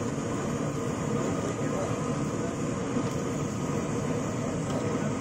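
Brinjal pakoras deep-frying in a large kadhai of hot oil: a steady sizzle over a constant low rumble.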